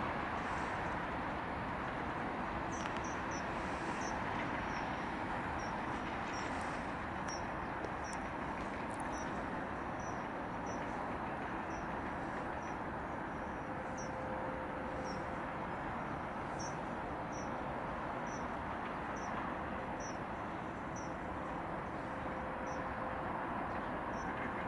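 A small bird repeating a short, high chirp about every two-thirds of a second over a steady rushing background noise.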